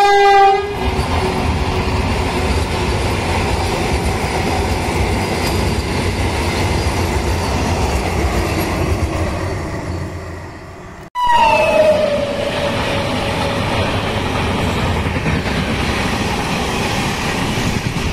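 Passing trains: a Vande Bharat Express electric train's horn cuts off in the first moment, then the train runs past with a steady rumble and clatter. After a sudden cut, another train's horn sounds for about three seconds, falling in pitch, as its passenger coaches run past.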